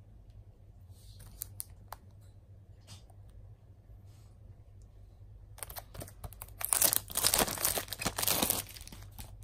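Clear plastic wrapping on a Blu-ray case crinkling and tearing as it is pulled off, loudest over about three seconds near the end. Before that there are a few light taps and rustles as the wrapped case is handled.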